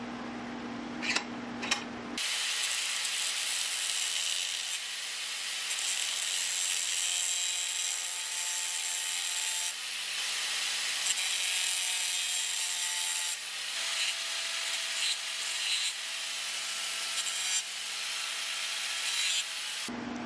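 Continuous harsh, high-pitched rasping of a tool working the old hammer's steel head, broken briefly twice. Two sharp knocks come just before it starts, about two seconds in.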